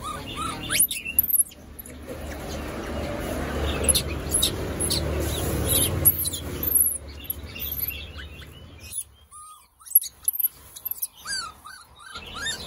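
Caged birds chirping and tweeting, many short high calls, over a low steady rumble that drops away about nine seconds in; near the end a run of short, lower chirps rises and falls in quick succession.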